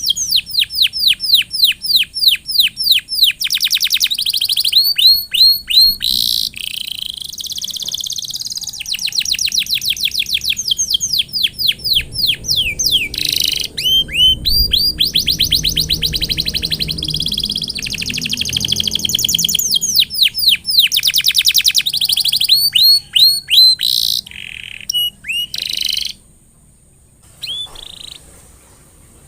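Domestic canary singing a long song made of rapid trills: each trill is a fast run of the same quick falling note repeated many times a second, switching from one trill type to the next with short breaks. The song grows quieter and more broken near the end.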